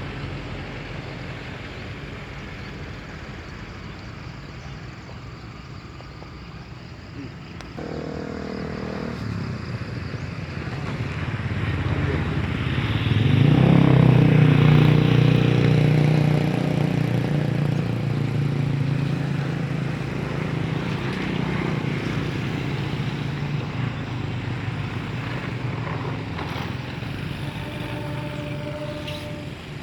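An engine passing close by: it grows louder to a peak about halfway through, then slowly fades.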